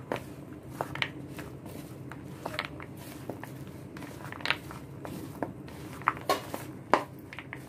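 Spatula stirring raw peanuts coated in damp gram flour and spices in a bowl: irregular scrapes and clicks as the nuts knock about, over a steady low hum.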